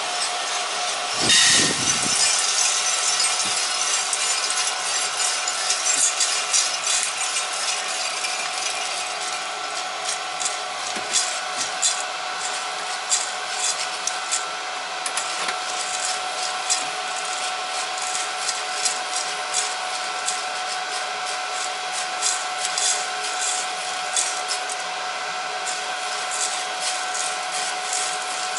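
Freshly roasted coffee beans dropping out of a Cormorant CR600 gas drum roaster into its cooling tray with a loud rush about a second in, then rattling and scraping as they are stirred to cool. The roaster's fans hum steadily underneath.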